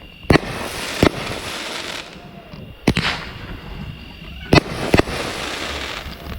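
Consumer aerial firework cake going off: five sharp bangs at uneven intervals, with steady crackling between them.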